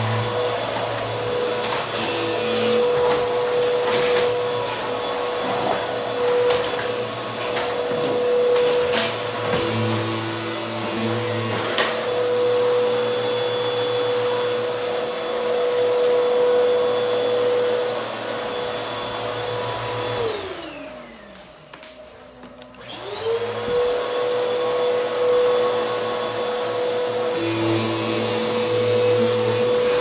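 Bissell bagless upright vacuum cleaner running with a steady motor whine, sharp ticks and crackles of crunchy debris being sucked up. About two-thirds of the way through it is switched off, its motor spinning down to near quiet, then switched back on about three seconds later and spinning back up to speed.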